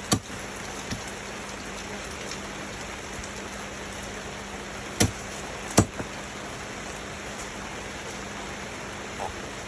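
Steady rain hiss with a faint low hum. It is broken by sharp knocks: one just after the start, a small one about a second in, and two loud ones close together in the middle.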